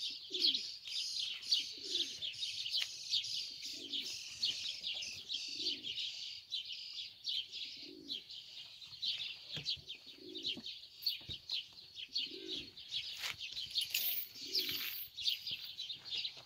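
Many small birds chirping continuously in quick, high notes, with a pigeon or dove cooing in short low phrases about every two seconds.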